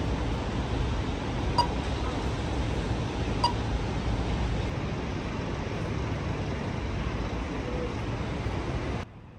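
A steady low rumble, with a short, clear ping sounding twice, about two seconds apart; the rumble cuts off abruptly near the end.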